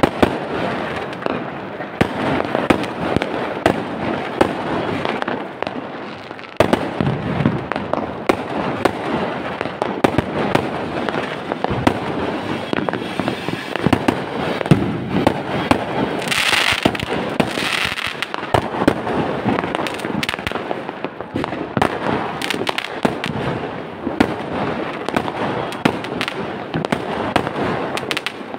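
Aerial fireworks bursting in the sky: a near-continuous barrage of bangs and crackling, with a brief hiss a little past halfway.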